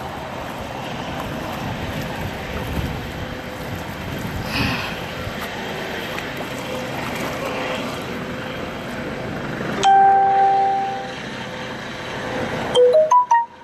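Legs wading through deep floodwater, the water swishing and splashing around them, with wind on the microphone. About ten seconds in a loud steady tone sounds for about a second, and near the end comes a quick run of short notes at changing pitches.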